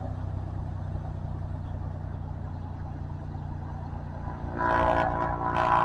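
The PT6 turboprop engine and propeller of a Cessna Caravan running at taxi power, a steady low drone. About four and a half seconds in the sound jumps louder, with a higher buzzing whine on top.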